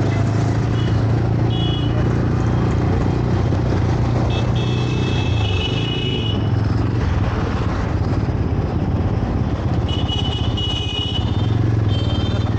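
Motorcycle engine running steadily at cruising speed on the move, a continuous low hum under road and wind noise, with a few short high-pitched tones from traffic around it.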